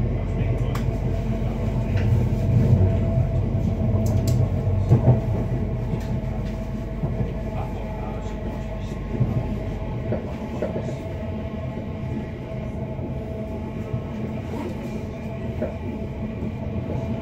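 Passenger train running along the line, heard from inside the carriage: a steady rumble of wheels on rail with a few sharp clicks in the first seconds, growing somewhat quieter in the second half.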